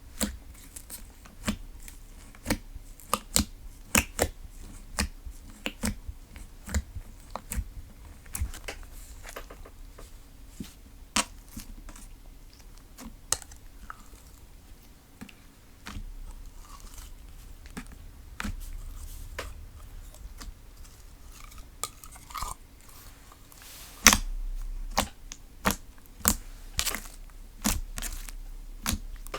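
Slime being squeezed, poked and stretched by hand, giving a run of crisp clicking pops one or two a second, with one louder pop late on.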